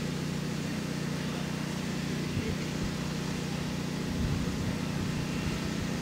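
Steady low rumble with a hiss over it, with a couple of brief low thumps about two and four seconds in.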